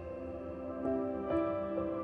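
Instrumental background music with slow, held notes. New notes come in about a second in and again half a second later.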